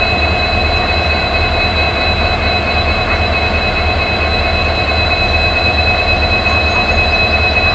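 Twin EMD diesel locomotives running, a steady deep engine rumble with two steady high-pitched whining tones over it.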